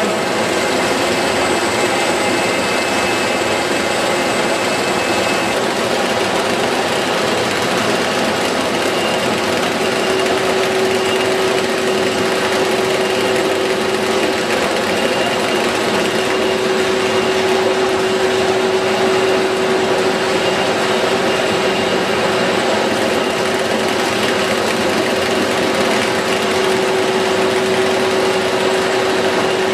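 Lollipop-making machinery running steadily: a continuous mechanical whir, with a steady hum that comes in about ten seconds in and holds.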